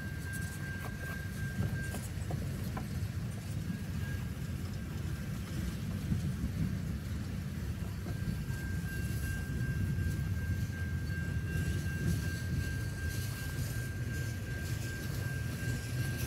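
Freight train cars rolling past in a low, steady rumble, heard from inside a vehicle with the heater running. A thin steady high tone drops out about two seconds in and returns about eight seconds in.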